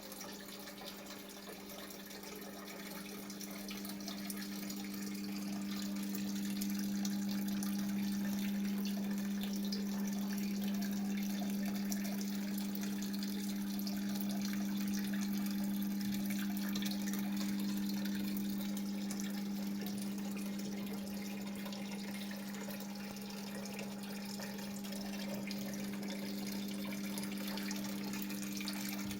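Waterfall water falling and splashing steadily, over a steady low hum. The water grows a little louder a few seconds in.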